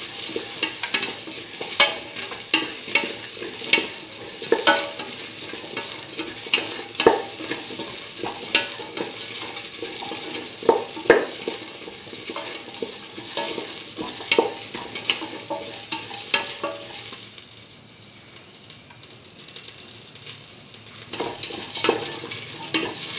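Beetroot, onion and spices sizzling in oil in a metal pan while being sautéed, with a spatula scraping and knocking against the pan. The knocks stop for a few seconds about three-quarters of the way through, leaving only the sizzle, then start again.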